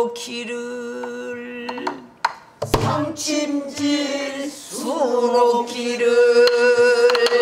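A woman singing pansori in long held notes, a first one for about two seconds and another from about five seconds in, accompanied by a buk barrel drum: one deep stroke on the drum head about three seconds in and a few light stick clicks.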